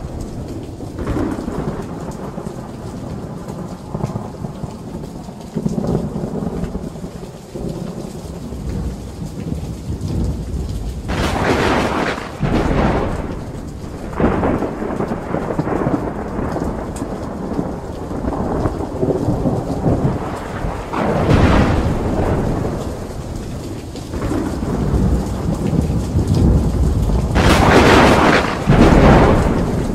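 Thunderstorm: steady rain with rumbling thunder, and three louder thunder crashes spread through it, the last and longest near the end.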